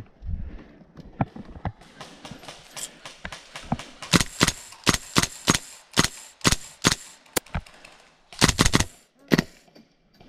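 Airsoft guns firing: faint distant shots at first, then louder single shots about two a second, a rapid burst of four or five, and one last shot.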